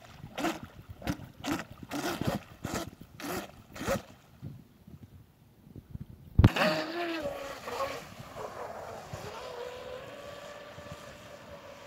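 Pro Boat Blackjack 24 RC boat's electric motor, driven in short throttle blips, roughly two or three a second, for the first few seconds. About six and a half seconds in a sudden loud burst comes as the boat takes off at full throttle, settling into a steady high whine as it runs away across the lake.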